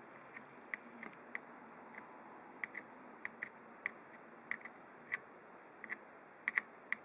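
Light, irregular clicks and taps, some in quick pairs, more frequent toward the end, over a faint steady hiss.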